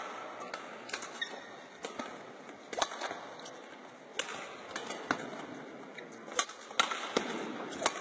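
Badminton rackets hitting shuttlecocks in a training drill: about a dozen sharp cracks at an uneven pace, some coming in quick pairs.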